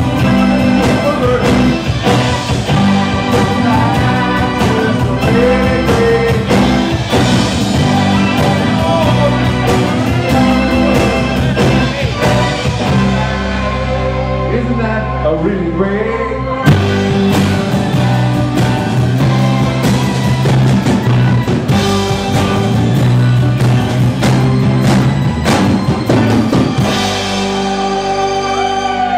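Live rock band playing: electric guitar, bass guitar, drum kit and keyboard, with a sung vocal. About halfway the drums drop out for a few seconds, then come back in with a hard hit.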